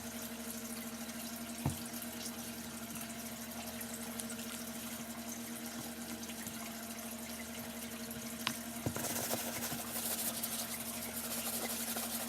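Wet brush scrubbing a sneaker's rubber sole over a steady hum, with a few knocks. The scrubbing hiss gets louder about nine seconds in.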